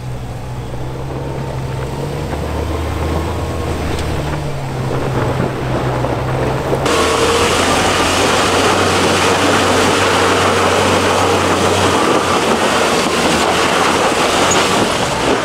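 Jeep Wrangler's engine labouring up a steep sand hill, its note stepping up and down. About seven seconds in the sound changes abruptly to a louder, harsher noise as the rig works over the crest-side dirt.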